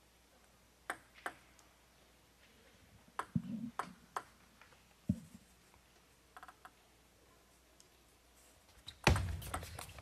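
Celluloid-style plastic table tennis ball giving a few scattered, sharp ticks as it is bounced and tapped before a serve. About a second before the end a much louder burst of hall noise sets in as play resumes.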